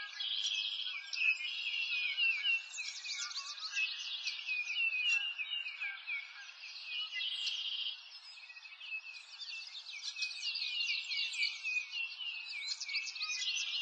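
Many birds chirping and singing at once in a continuous chorus of short, overlapping calls, over a faint steady hiss.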